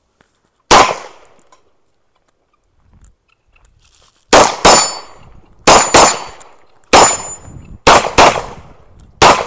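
Semi-automatic pistol shots fired at steel targets: one shot, then after a pause a run of eight more, mostly in quick pairs. Several shots are followed by a short metallic ring from a steel plate being hit.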